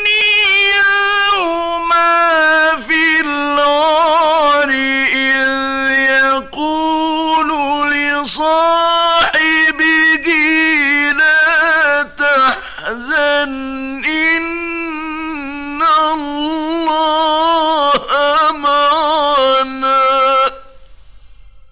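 A male Quran reciter chanting in the melodic mujawwad style, one solo voice drawing out long, ornamented notes with wavering pitch and brief breaks between phrases. The voice stops about twenty seconds in, leaving only faint tape hiss.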